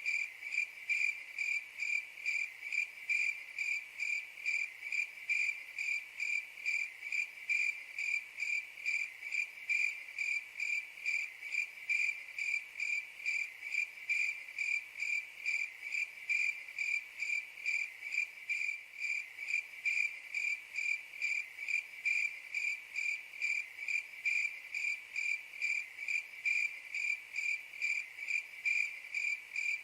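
Cricket chirping steadily in a regular, even rhythm of about three high-pitched chirps a second.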